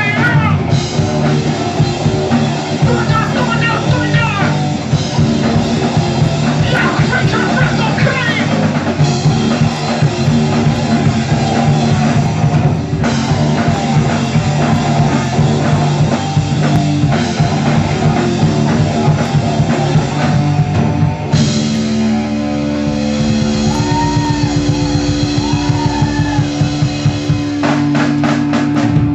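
Rock band playing an instrumental passage on drum kit and electric guitar. A little after two-thirds of the way through, the drumming thins out, leaving held guitar notes with a few bends.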